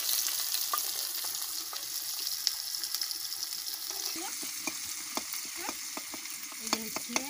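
Chopped onions sizzling in hot oil in a metal kadai, the hiss loudest at first and slowly easing. From about four seconds in, a steel spatula scrapes and taps against the pan as the onions are stirred.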